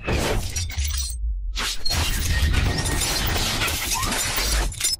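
Cinematic logo-sting sound effects: crashing, shattering whooshes over a deep bass rumble, breaking off briefly a little after a second in and cutting off sharply just before the end.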